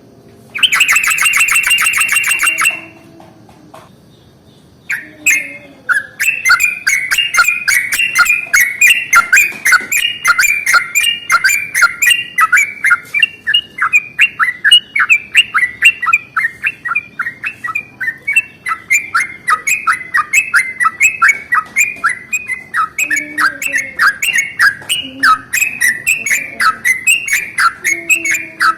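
Yellow-vented bulbul (trucukan) singing a long rolling song: a fast, unbroken run of bubbly notes, several a second, from about five seconds in. It opens with a loud buzzy burst of about two seconds, then a short pause.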